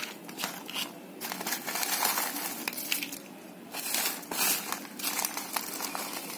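Dried banana peels and dry leaves rustling and crackling as a hand scoops them up and drops them into a pot of compost scraps. The rustling is irregular, with no steady rhythm.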